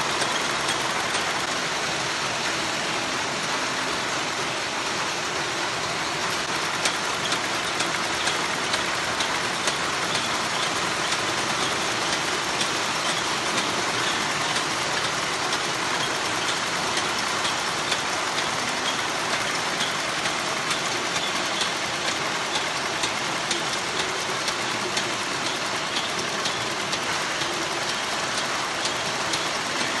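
Treadle-powered Singer sewing machine running steadily, an even mechanical whirr and clatter with faint, regular ticks from the needle mechanism.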